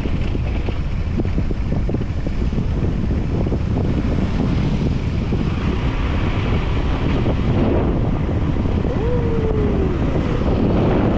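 Heavy wind buffeting the microphone, a dense low rumble that runs on without a break, with a brief falling tone about nine seconds in.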